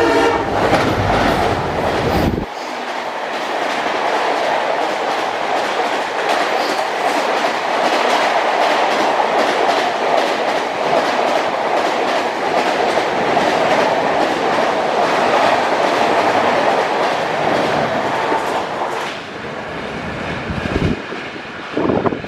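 WDP4B diesel-electric locomotive's two-stroke EMD engine running hard with a low rumble for about the first two seconds as it goes by, then the passenger coaches of the express rushing past at speed with a steady clickety-clack of wheels over rail joints. The rush fades in the last few seconds as the train's tail passes.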